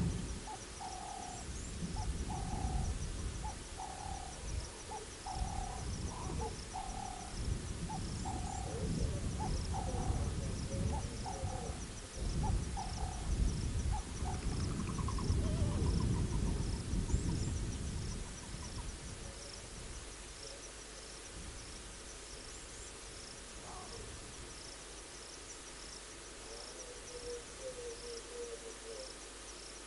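Bush sounds at a wildlife camera: an animal repeating a short low call about one and a half times a second for roughly the first twelve seconds, over crickets chirping steadily. A low rumble runs under it and dies away after about eighteen seconds, and another brief call comes near the end.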